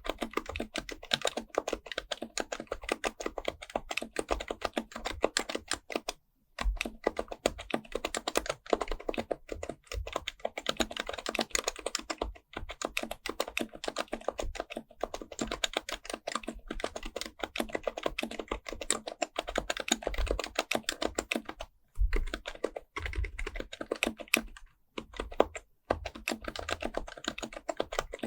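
Fast, continuous typing on an HHKB Pro Type-S, a quieted Topre electrostatic-capacitive keyboard, many keystrokes a second with a few short pauses.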